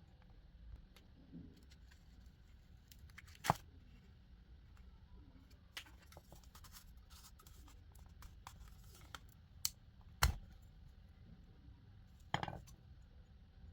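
Small handling sounds of parts and tools being worked at a bench: a few sharp clicks and knocks, the loudest about ten seconds in, with light scraping and rustling between.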